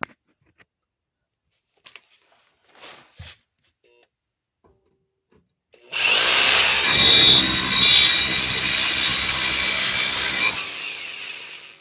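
Bauer rotary hammer with a chisel bit hammering at a CV joint seized in a wheel hub, to drive it loose. It starts suddenly about six seconds in, runs for about four and a half seconds, then winds down. A few light clicks come before it.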